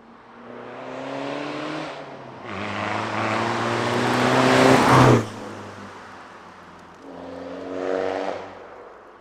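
Straight-piped BMW 320d (E90) four-cylinder turbodiesel accelerating hard. The engine note rises in two pulls with a short break between, the second louder, then cuts off sharply about five seconds in as the throttle closes. A shorter rising pull follows near the end.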